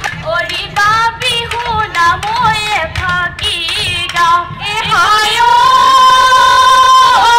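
A woman singing a melody played through stage speakers for a group dance: quick changing notes, then from about five seconds in one long held high note.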